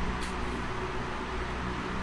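2024 Nissan Z's 3.0-litre twin-turbo V6 idling steadily, freshly refilled with oil and running to circulate it before the level is checked.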